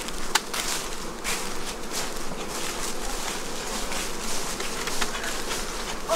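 Honeybees buzzing steadily around hives, with the scattered crunch of footsteps on dry leaves.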